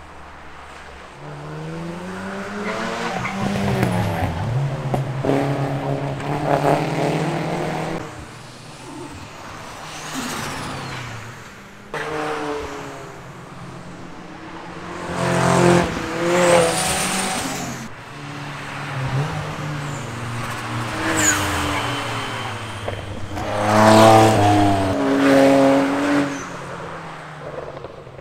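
Several cars passing one after another on a racing circuit, engines rising and falling in pitch as they accelerate and change gear through the corners. There is a brief high squeal about halfway through.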